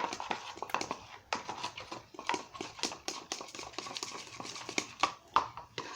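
Glue-based slime mixture being stirred in a container, with a quick, irregular run of sticky clicks and taps from the stirring utensil.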